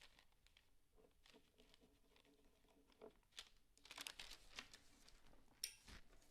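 Faint clicks and light rustling of small metal parts being handled as a phonograph's speed control is taken apart, with one sharper click about five and a half seconds in.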